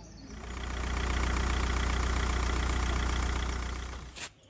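A motor vehicle's engine running steadily. It swells in over about a second and fades away near the end.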